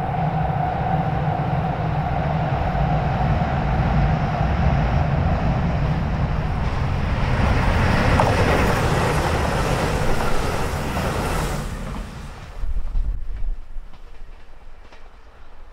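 JR Shikoku 2000 series diesel railcars passing close by: the diesel engines run loud under a clatter of wheels on rail, peaking about eight seconds in. The sound drops sharply about twelve seconds in and stays much quieter.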